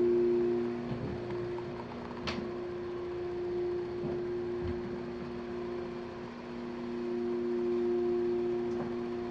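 Residential elevator's drive motor humming steadily during the ride, a two-tone hum that swells and fades slowly, with a single sharp click about two seconds in.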